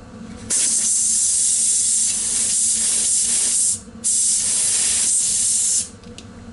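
Compressed air hissing from a blow gun into a homemade experimental air engine, in two long blasts with a short break a little before four seconds in. The engine does not run: the piston only moves to mid-stroke and stops while the air blows through.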